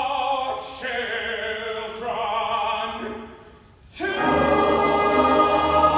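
Male voice choir singing held chords. One phrase fades about three and a half seconds in, and a fuller, louder chord starts about four seconds in.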